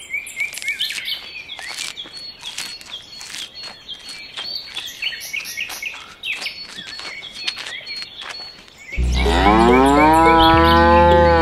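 Small birds chirping repeatedly, then about nine seconds in a cow moos once, a long loud call that rises in pitch and then holds.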